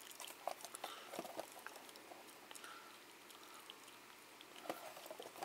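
Faint handling noise of a cardboard trading-card box held and turned in the hands: scattered light taps and scrapes of fingers on the box, the clearest tap near the end.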